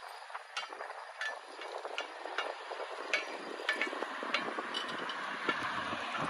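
Irregular metallic clinks and knocks, about a dozen, over a steady rushing noise that grows louder near the end.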